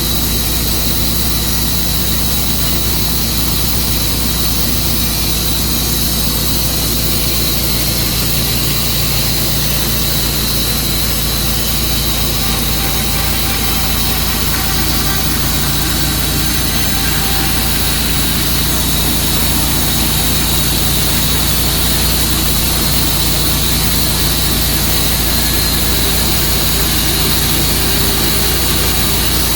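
Tru-Cut sawmill running steadily: a constant engine drone with a steady high whine over it, unchanging throughout.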